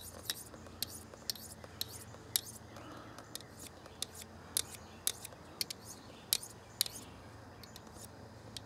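Steel blade of a small Case pocket knife drawn along a hand-held diamond sharpening rod: short, crisp metal-on-abrasive strokes, about two a second in an uneven rhythm.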